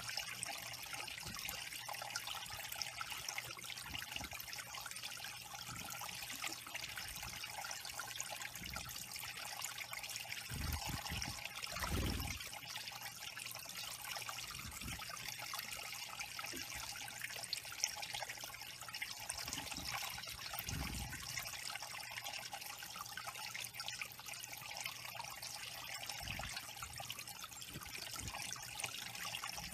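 Water trickling steadily down a small stone waterfall into a shallow pool, with a few short low rumbles, the strongest about twelve seconds in.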